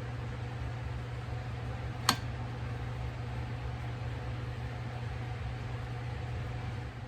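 Steady low hum of a workshop, with one sharp click about two seconds in.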